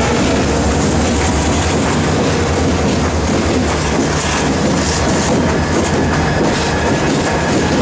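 Several CSX diesel-electric locomotives in a multi-unit lash-up passing at close range, their engines running and steel wheels rolling on the rails in a loud, steady rumble.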